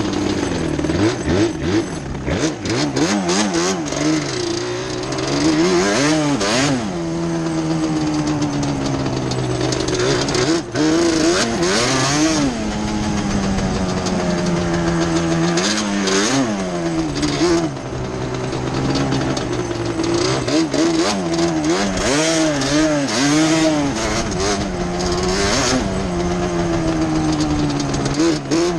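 Yamaha Banshee quad's two-stroke twin engine being ridden hard on a dirt trail, revving up and dropping back over and over as the throttle is worked and gears change.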